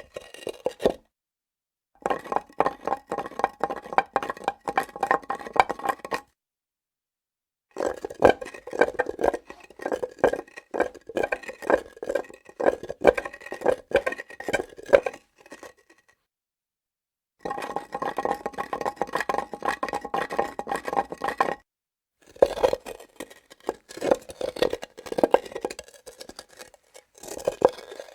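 Hard objects scraped, rocked and knocked against a granite slab: dense runs of scraping and clattering hits with a steady ringing tone underneath, in several separate takes broken by dead silence.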